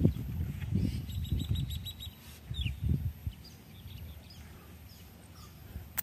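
An Asian elephant foraging: low, uneven thuds and rustles in the first three seconds as it kicks and tears at the plants, then quieter. Small birds chirp throughout, and there is a sharp click at the very end.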